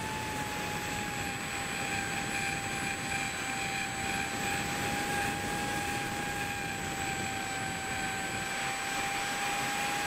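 Brushless electric motor (Lumenier Skitzo 2204, 2500 kv) driving a three-blade propeller on an RC foam plane in flight, heard through an onboard camera: a steady high whine over rushing air, dipping slightly in pitch about a second in.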